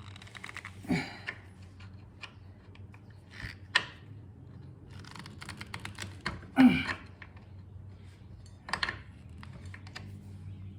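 Metal hand tools clicking and scraping on the tight drain screw of a Honda B100 outboard's lower-unit gearcase as it is worked at to break it free, with a few sharper knocks.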